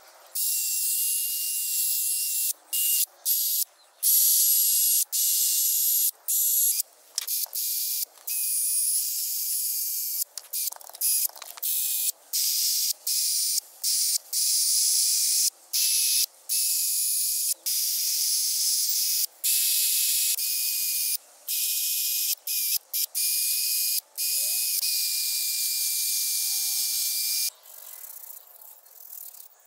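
Aerosol spray can spraying in many short bursts, a high hiss with a faint whistle from the nozzle, and stopping near the end.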